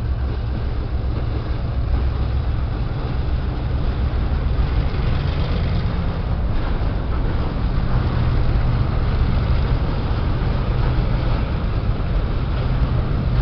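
Freight train of empty grain hopper wagons rolling past at speed behind an EMD G12 diesel locomotive: a loud, steady rumble of wheels and wagons on the rails.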